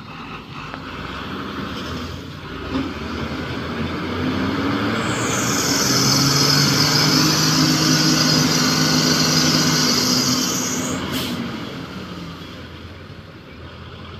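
Diesel engines of a UD Trucks dump truck and a backhoe loader working hard to free the truck from deep mud. The engine noise builds from about four seconds in and is loudest for about five seconds with a strong high hiss on top. There is a short sharp sound near the eleven-second mark, then the noise dies down.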